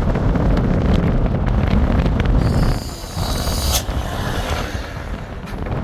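A vehicle driving, heard as a loud low rumble. About two and a half seconds in, a brief high hiss ends in a sharp click.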